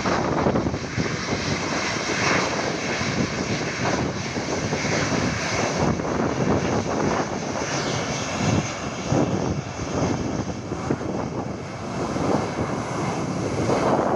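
Boeing 737-800's CFM56-7B jet engines running at low taxi thrust as the airliner lines up and rolls past, a steady broad rush with a faint high whine over it.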